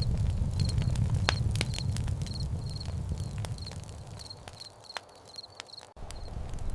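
Campfire crackling with sharp pops over a low rumble, while crickets chirp in short repeated pulses. The rumble fades away about five seconds in, all but stops briefly near six seconds, then comes back.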